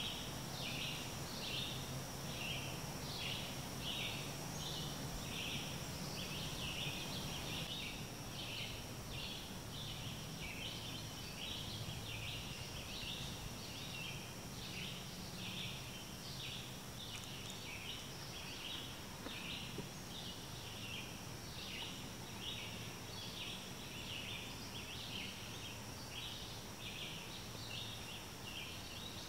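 Outdoor evening ambience full of short, high chirping animal calls repeating about twice a second without a break, over a steady high-pitched hiss-like tone and a faint low hum.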